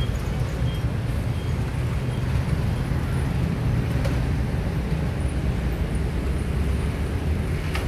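Steady low rumble of road traffic on an elevated roadway.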